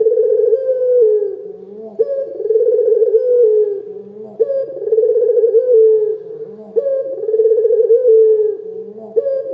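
Ringneck dove (puter) cooing steadily. Each coo is a short lead-in note followed by a long rolling, warbling coo, repeated about every two and a half seconds.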